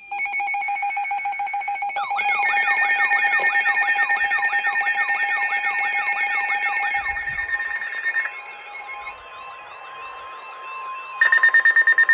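Emergency alert tones signalling a severe thunderstorm warning: a steady electronic alarm tone, joined about two seconds in by a rapidly repeating warbling sweep of about three sweeps a second. Later a single steady tone carries on, and a short burst of loud, rapid pulses comes just before the end.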